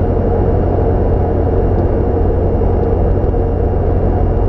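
Cessna 172's piston engine and propeller droning steadily, heard inside the cockpit cabin.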